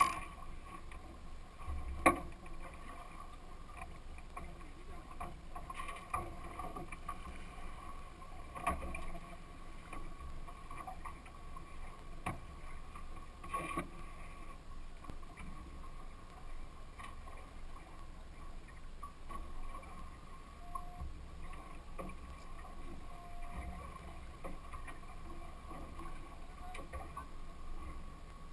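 On-deck sound of a small boat at sea: a steady hum with wind and water noise, broken by scattered knocks, the loudest a sharp knock about two seconds in.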